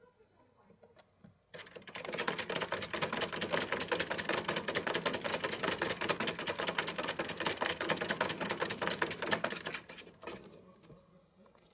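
Exercise wheel clattering as a Richardson's ground squirrel runs in it: a fast, even rattle of many small clicks that starts about a second and a half in, runs steadily, and thins out to a few clicks near the end as the wheel slows.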